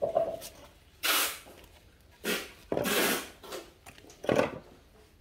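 Handling noise: about five short rustling, scraping sounds, with quiet gaps between them.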